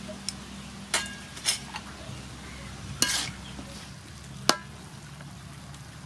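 Metal ladle stirring beef in a large metal wok: about five sharp clinks and scrapes of metal on metal over a steady sizzle of frying.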